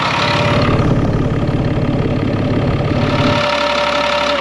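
Caterpillar 3126 inline-six turbodiesel idling steadily, with a steady whine over the engine note; its deep low end drops away a little over three seconds in.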